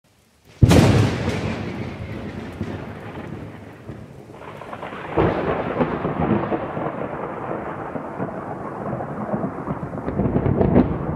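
Thunderclap sound effect: a sudden loud crack about half a second in, then a long rolling rumble that swells again about five seconds in.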